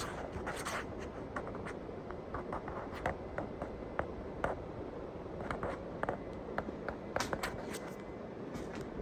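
Old ceiling fan with a General Electric stack motor running at top speed, a steady hum and rush of air. Many light, irregular clicks and scrapes sound over it.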